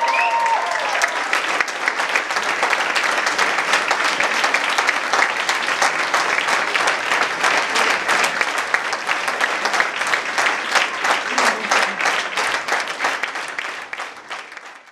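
Audience applauding, a dense patter of many hands clapping that fades out in the last second.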